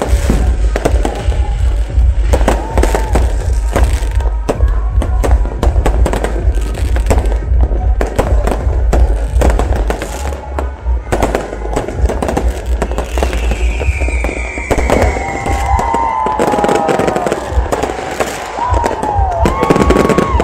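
Fireworks display going off: a dense run of bangs and crackling bursts. In the second half come several whistles that glide in pitch, one falling high and others arching up and down.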